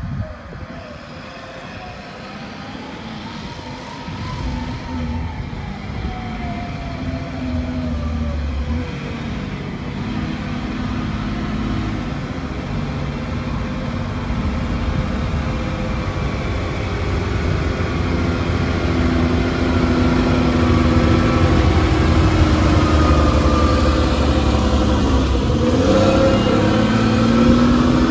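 Bell B25 articulated dump truck's diesel engine pulling the truck, laden with stone, up a dirt ramp. It grows steadily louder as the truck approaches and passes close by, its engine note shifting as it works up the slope.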